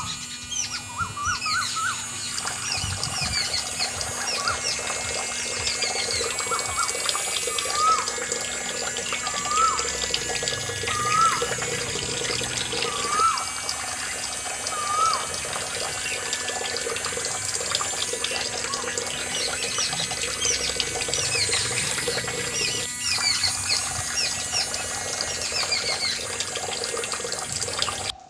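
Water from a miniature belt-driven toy water pump pouring in a steady stream and splashing into a small pool, over a steady low hum. Birds chirp repeatedly, a short rising-falling call about every second and a half in the first half, with higher twitters throughout.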